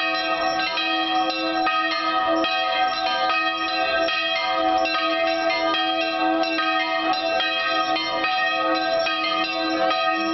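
Several church bells of different pitches rung in a rapid, continuous peal, with a lower bell sounding steadily underneath.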